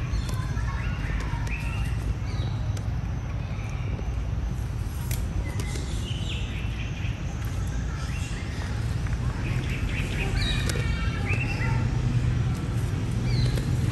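Short, high chirping animal calls, many of them overlapping, over a steady low rumble; the calls come thickest about ten seconds in.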